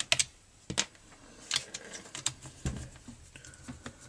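Irregular light clicks and taps of a metal hex driver and screws against a string trimmer's muffler and engine housing as the muffler's side screws are undone with a 4 mm hex bit.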